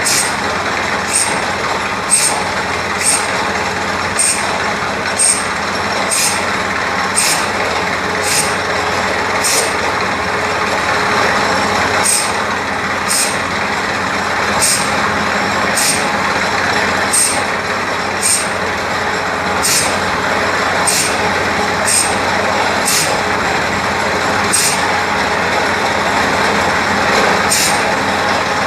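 Borewell drilling rig running steadily, a loud rushing drone with a sharp tick about once a second.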